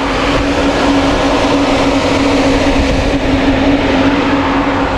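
A 12-volt RV parking air conditioner, its main unit mounted under the chassis, running with a loud, steady hum over a rushing noise. The noise is the drawback of this low-power DC unit, which is struggling to cool the RV in 40-degree heat.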